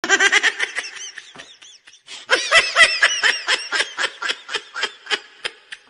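High-pitched snickering laugh in a rapid string of short bursts. It trails off, then starts again louder about two seconds in and fades away.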